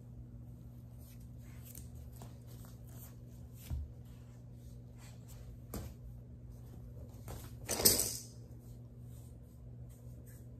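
Soft taps and rustles of a toddler handling a foam play-mat tile, with a dull thump a few seconds in and a brief louder scuff about eight seconds in, over a steady low hum.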